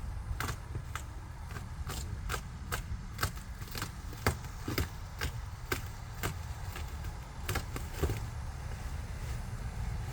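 A string of irregular sharp clicks and light knocks, about two a second, over a steady low rumble.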